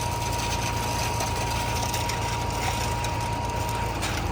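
An engine running steadily at a constant speed, a low hum with a thin steady whine above it.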